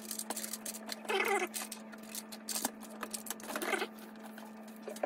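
Sticky-backed aluminium foil crinkling and crackling in quick irregular clicks as it is wrapped by hand around a plastic pipe, over a steady low hum. Two brief voice-like sounds come through, the first about a second in and the second at about three and a half seconds.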